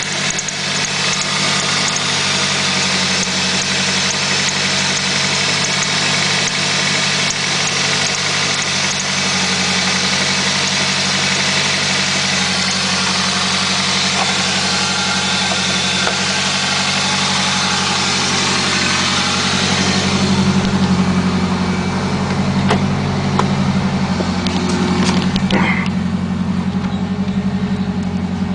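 Toyota Celica engine idling steadily, with the squeak-chirp noise that shows up at idle. A bright high hiss over the engine drops away about two-thirds of the way through, leaving the lower engine note.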